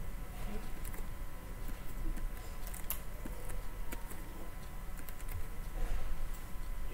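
Faint, scattered clicks and taps from a pen stylus writing on a drawing tablet, over a steady low room hum.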